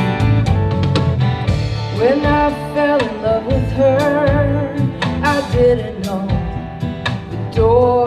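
A live acoustic band plays: strummed acoustic guitars, bass guitar and a drum kit keeping a steady beat. From about two seconds in, a woman sings a held, wavering melody line.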